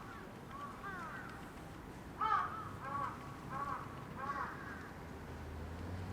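A crow cawing: a run of harsh calls repeating about every half second, loudest about two seconds in, with fainter calls before them.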